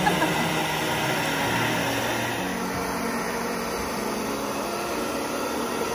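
Handheld hair dryer blowing steadily, heating a vinyl decal on the bus's side to loosen its adhesive.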